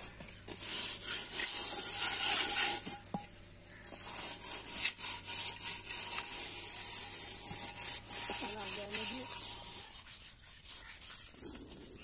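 Hands rubbing damp soil over the outside of an aluminium cooking pot, an uneven gritty scraping that stops for a moment about three seconds in and dies away near the end.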